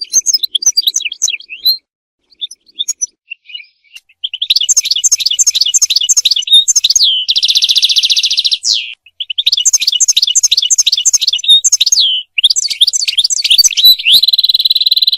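European goldfinch singing. It opens with a few scattered twitters, then about four seconds in breaks into a fast, continuous run of tinkling notes. Two long buzzy notes break the run, one about seven seconds in and one near the end.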